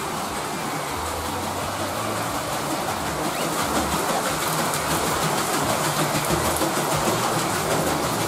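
Large wooden water wheel turning, with water spilling and splashing off it and a steady rumbling clatter that grows a little louder partway through.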